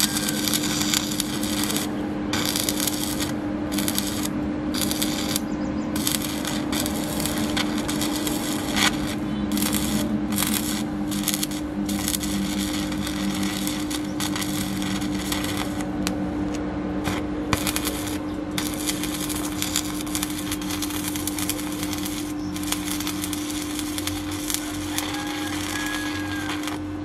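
Electric arc welding on a steel tractor rotary tiller shaft: the arc crackles and sizzles continuously, breaking off briefly again and again, over a steady low hum.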